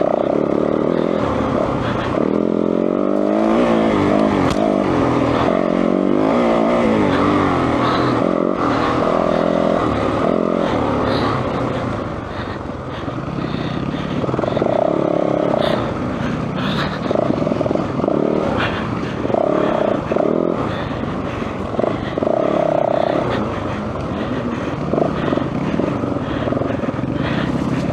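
Yamaha WR450F four-stroke single-cylinder enduro engine running close to the microphone, revving up and down as the bike rides a woods trail, with occasional knocks.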